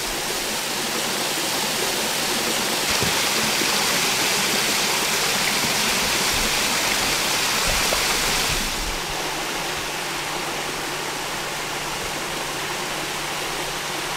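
A small waterfall spilling over rocks into a pool: a steady rush of falling and splashing water. It grows a little louder and brighter about three seconds in, then eases back a little before the ninth second.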